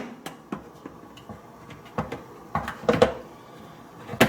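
Plastic filter parts of a Maytag dishwasher knocking and clicking as they are handled and fitted back into place: scattered light taps, a cluster of louder knocks about three seconds in, and another sharp knock near the end.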